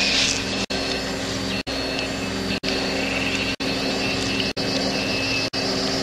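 A steady droning hum with several held tones, broken by short gaps about once a second.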